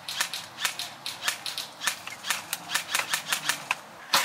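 Scattered airsoft gunfire: irregular sharp snaps, several a second, from more than one gun, with a rapid full-auto burst starting at the very end.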